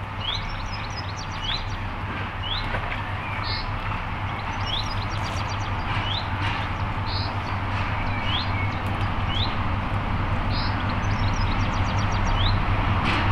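Diesel locomotive engine drone, low and steady, growing louder as the locomotive approaches. Over it, birds sing short rising chirps about once a second, with occasional high trills.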